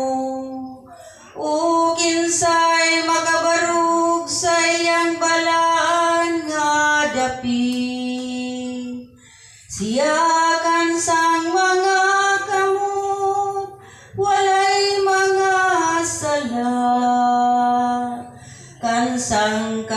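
A woman singing a verse of the responsorial psalm in Cebuano, solo, in four long phrases of sustained notes with short breaths between them.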